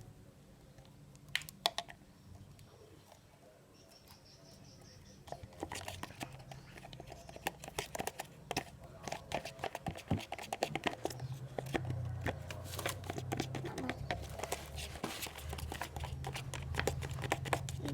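Plastic spoon stirring PVA glue and water in a plastic cup to mix slime, with rapid clicking and scraping against the cup walls. A couple of taps come first, and the stirring gets going about five seconds in.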